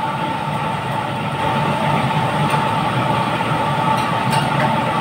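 Steady machine drone with a constant humming tone, with a few faint light clicks of a spoon on clam shells.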